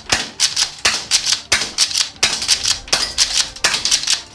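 Gas-powered Golden Eagle M870 airsoft pump shotgun being pumped and fired over and over: sharp pops mixed with the clack of the pump action, about three a second.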